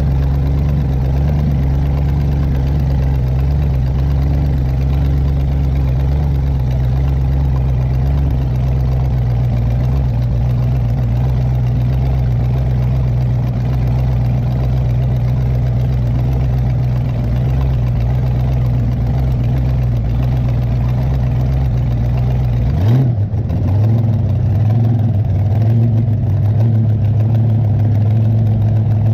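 Engine of a 1972 Sanger shovelnose hydroplane running steadily at low speed as the boat comes in off plane. A few seconds before the end the note wobbles briefly and the deepest rumble drops away, then it settles to a steady lighter running note.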